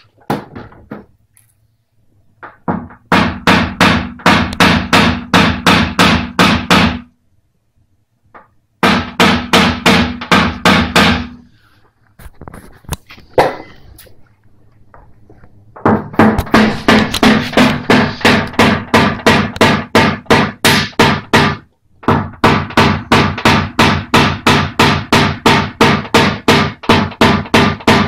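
A PDR hammer tapping a knockdown punch against a steel car wing, in fast, even runs of about four or five taps a second, with short pauses between the runs. This is knockdown work, lowering the raised metal along a crease.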